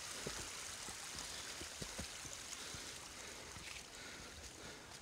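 Steady rushing of a mountain creek, with soft, irregular thuds of a hiker's footsteps on the trail.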